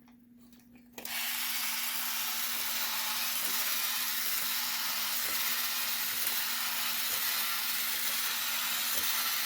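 G1 Sky Lynx toy's battery-powered walking motor and plastic gears whirring steadily. It switches on suddenly about a second in.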